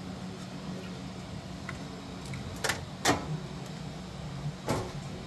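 Steady low machine hum, like fans running, broken by three short sharp clicks: two close together about two and a half to three seconds in, and one near the end.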